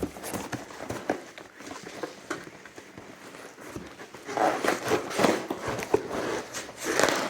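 Rustling and light knocks of a shipping box's contents being handled and rummaged through, louder and busier about four and a half seconds in and again near the end.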